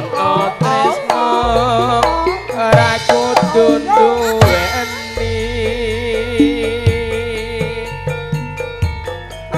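Live Javanese gamelan music: a woman sings a wavering, ornamented melody over bronze kettle-gong and metallophone tones, with drum strokes every second or two and low gong tones ringing underneath.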